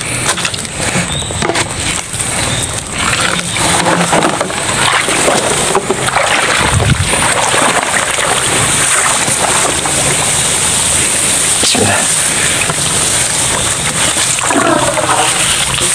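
Footsteps swishing and splashing through tall wet grass and shallow water, with a steady high hiss underneath.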